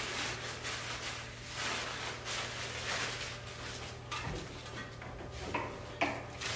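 Plastic bags rustling and crinkling in short, irregular rustles as they are handled and packed, with a soft thump about four seconds in.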